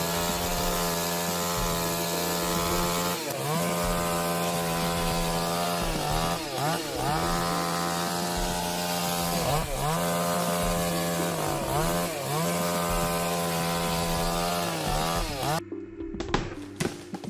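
Chainsaw running at high revs, its pitch dipping briefly and recovering several times as it is throttled off or loaded in the cut. Near the end it stops and a series of sharp cracks follows.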